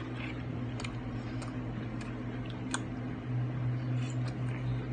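Eating noises: scattered small clicks and ticks, one a little sharper near the middle, over a steady low hum.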